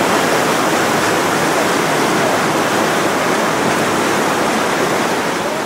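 The Ganges in full flood: a swollen, fast torrent rushing with a steady, loud, unbroken noise of churning water.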